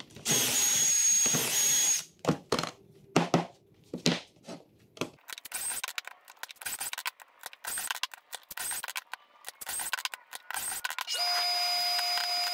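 DeWalt cordless drill boring a pocket hole through a Kreg K4 jig into a pine board, running steadily for about two seconds. Then sharp knocks and clatter as the board and jig are handled. Near the end a dust collector starts up through its hose with a steady whine.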